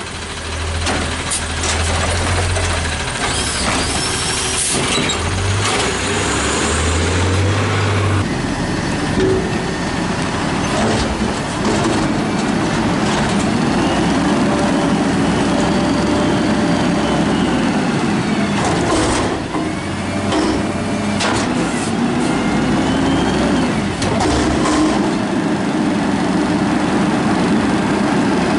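Garbage truck engines and hydraulics at work: an automated side loader running as its arm tips a cart, then, after a cut, a natural-gas front-loader garbage truck running its hydraulic lift arms, with a whine that rises and falls as the engine revs.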